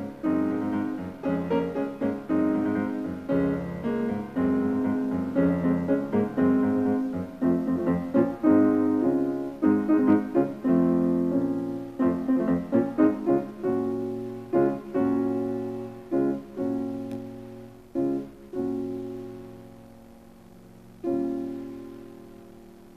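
Solo piano music: a gentle melody of single struck notes, each left to ring and fade, thinning out toward the end, with a last chord struck near the end and left to die away.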